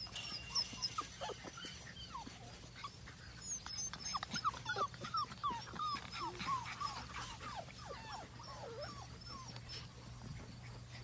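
Labrador retriever puppies whimpering and yipping in a rapid string of short, high squeals that slide up and down in pitch while they wrestle, busiest in the middle and thinning out near the end.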